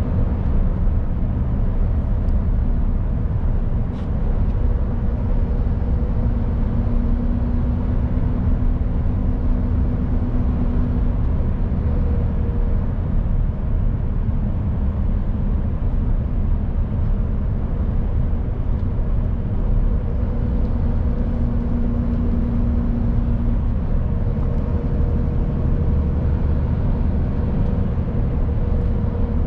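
Mercedes Actros truck, weighing about 20 tonnes, driving at a steady pace: a constant low engine and road rumble, with a faint hum that comes and goes.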